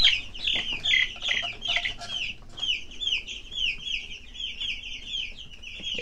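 Two-week-old Cornish Rock broiler chicks peeping: a continuous run of high, falling peeps, ragged and overlapping at first, then steady at about three a second. A few faint knocks early on.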